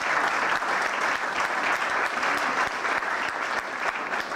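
An audience applauding: many hands clapping together, starting to die down near the end.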